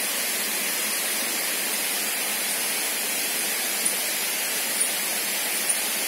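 Steady rush of water flowing along a concrete channel: an even, unbroken hiss, with a few faint ticks in the second half.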